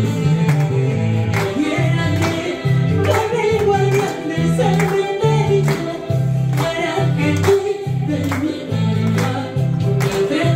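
Music with singing over a steady beat and a stepping bass line.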